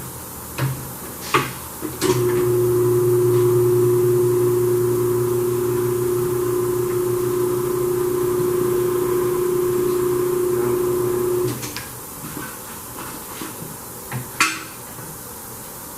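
Tire changer's electric turntable motor running with a steady hum for about nine seconds, turning the wheel to work the tire bead off the rim. Metal clicks and knocks come before it starts and after it stops, with one sharp clank near the end.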